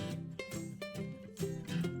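Background music: strummed and plucked acoustic guitar in a country style.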